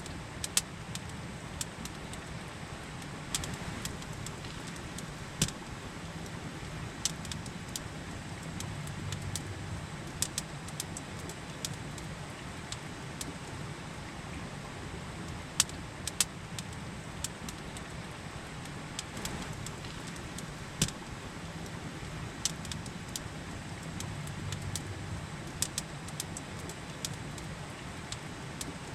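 Campfire crackling, with sharp irregular pops a second or several apart, over the steady rush of river water.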